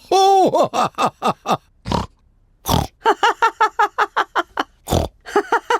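Cartoon pig characters laughing in quick runs of short syllables, with a few snorts in between.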